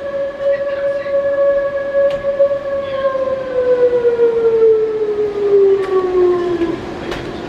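Electromechanical warning siren sounding for a tornado warning: a steady tone that, about three seconds in, winds down in a long falling glide and dies away near the end.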